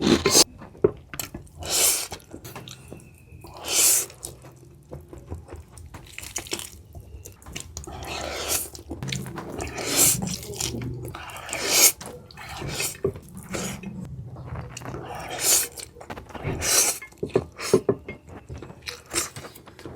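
Close-miked eating: wet chewing, smacking and slurping in irregular bursts.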